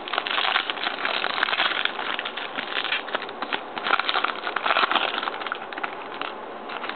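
Wrapper of a 1998-99 Upper Deck Choice hockey card pack being torn open and crinkled: a dense, irregular crackling that dies away about five and a half seconds in.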